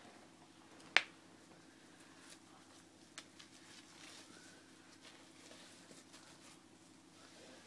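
A sharp click about a second in, then a fainter one about two seconds later, over faint fabric handling, as the fasteners along the outside-leg opening of adaptive trousers are secured.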